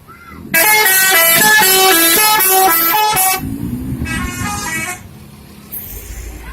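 Pandawa 87 bus's "telolet" musical air horn playing a quick tune of stepping notes for about three seconds. A shorter, fainter run of notes follows about four seconds in.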